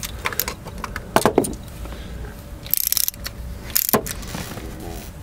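Socket ratchet wrench tightening bolts: a string of sharp ratchet clicks, with two longer rattling ratchet runs about three and four seconds in.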